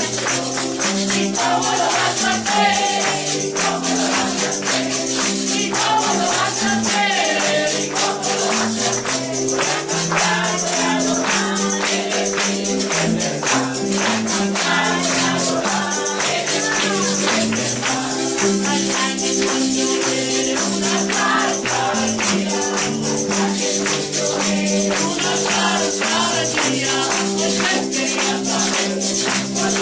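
Spanish-language gospel song: group singing over instrumental backing, with a tambourine shaken to a steady beat.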